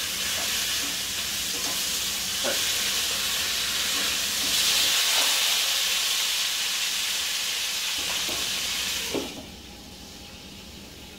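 Chicken thighs frying in a hot pan: a steady sizzle with a few pops, which drops away abruptly about nine seconds in.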